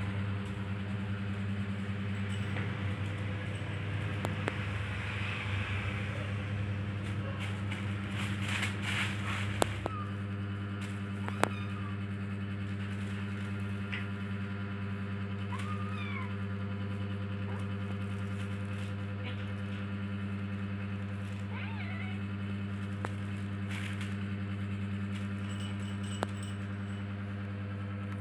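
Steady low mechanical hum, with scattered sharp clicks and rustling as a kitten plays on a plastic sheet with a plastic ball-track tower toy. The rustling is busiest in the first ten seconds.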